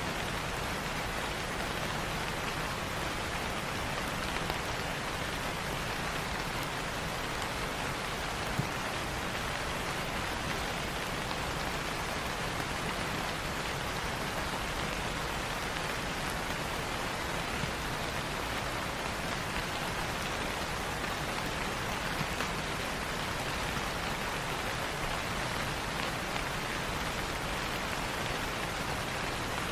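Light rain falling steadily, an even hiss of rain on a surface with a few separate drops ticking now and then.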